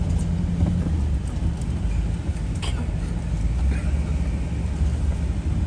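2013 Jeep Wrangler's 3.6-litre V6 running with a steady low rumble as the Jeep crawls off-road. A single sharp knock comes about two and a half seconds in.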